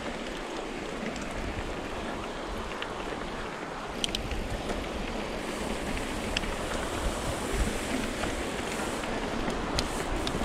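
Wind rushing over the microphone and the tyre noise of a mountain bike rolling along a rough trail, with a few sharp clicks and rattles from the bike about four seconds in and near the end.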